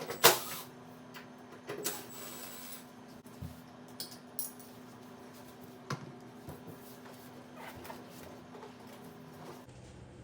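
Small metal parts and hand tools being handled during appliance disassembly: a sharp click near the start, then scattered light clicks and knocks and a short scratchy rub about two seconds in, over a faint steady hum that stops near the end.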